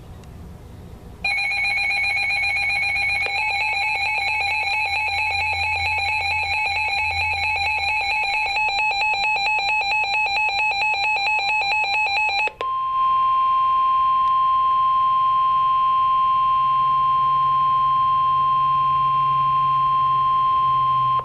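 Emergency alert tones: a harsh, rapidly pulsing electronic beeping for about eleven seconds, then it cuts to a single steady warning alarm tone held for about eight seconds, the weather radio alert signal that announces a severe thunderstorm warning.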